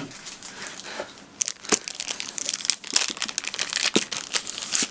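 Thin clear plastic bag crinkling as hands handle it, in rapid crackles that pick up about a second and a half in.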